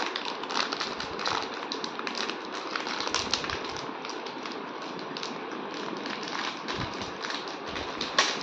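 Clear plastic toy wrapper crinkling as fingers twist and pull at it to open it, a dense run of irregular small crackles with a louder one near the end.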